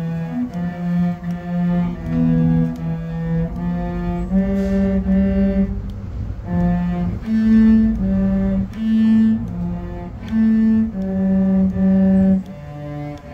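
Two cellos playing a duet in bowed, held notes, the melody moving from note to note every half second to a second.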